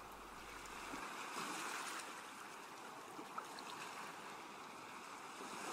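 Steady, soft rush of sea water and waves.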